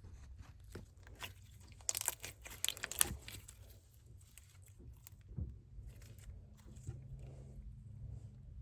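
Slime being stretched and squished by hand, giving small crackling and popping clicks that are busiest about two to three seconds in.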